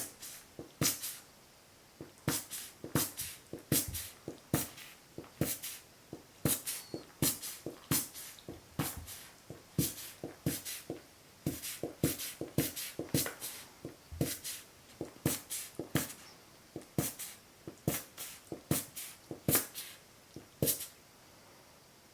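Jack Russell Terrier chewing a tennis ball, the ball's rubber shell denting and popping back in sharp 'peko peko' pops, irregular, one or two a second, stopping near the end.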